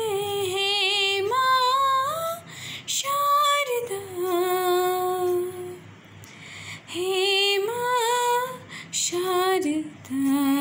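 A woman's solo voice singing a slow devotional hymn to the goddess Saraswati, in long held notes that waver in pitch, with short breaks between phrases.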